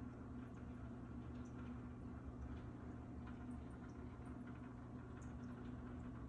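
Aquarium filter running: a steady low hum with faint water trickling and scattered small ticks, like bubbles popping at the surface.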